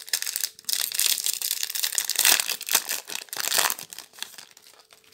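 Foil wrapper of a Magic: The Gathering booster pack crinkling and tearing as it is ripped open by hand, dense crackling that thins out near the end.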